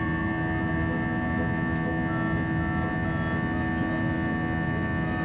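Jet airliner cabin noise in the climb: the engines' steady drone, with several steady humming tones over a rush of air.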